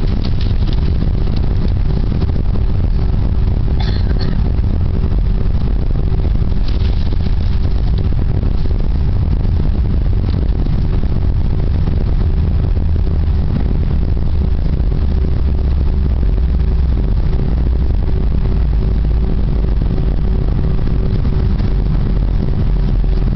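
Airbus A320 cabin noise by the wing: the jet engines run at a steady low power with a constant hum over a deep rumble, as the airliner taxis. A few light rattles of cabin fittings come through about four and seven seconds in.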